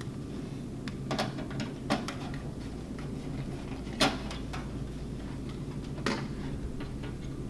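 A Phillips screwdriver working screws out of a thin stainless-steel panel: a few scattered light metallic clicks and clinks, the sharpest about four seconds in.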